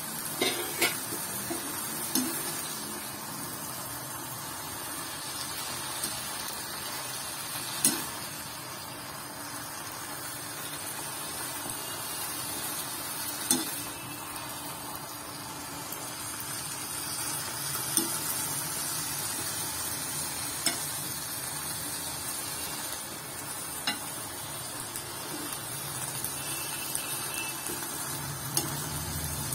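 Sesbania (agathi) leaves and grated coconut sizzling in a black kadai as a perforated steel spatula stirs and scrapes through them, with a sharp clink of the spatula against the pan every few seconds.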